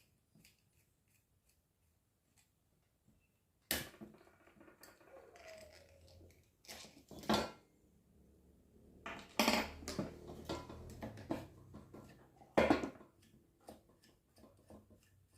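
Hands working on a pedestal fan's parts and tools during disassembly: a few faint ticks, then four sharp clicks and knocks with scraping and handling noise between them.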